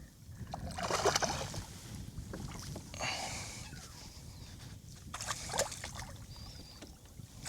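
Water splashing and sloshing around a kayak as a hooked ladyfish is fought at the surface, with a few louder splashes about a second in, around three seconds, and past the middle, over a steady low rumble.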